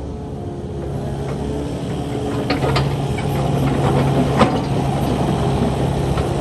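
Kubota KX080 crawler excavator's diesel engine running steadily, its low note growing stronger about two and a half seconds in, with a few sharp metallic knocks.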